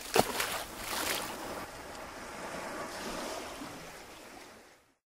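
A rushing, surf-like noise with no tune in it. It swells about a second in and fades away before the end, with a single click just after it starts.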